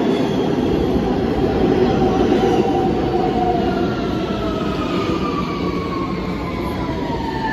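New York City Subway train running with a steady rumble, its motor whine gliding slowly down in pitch through the second half as the train slows.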